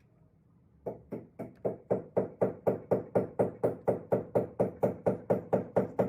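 Rapid, evenly spaced knocking, about four knocks a second, starting about a second in and getting louder over the first second or so.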